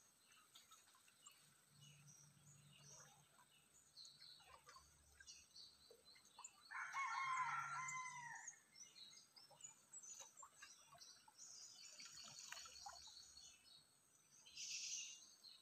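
A rooster crows once, about seven seconds in, over faint scattered chirping of small birds.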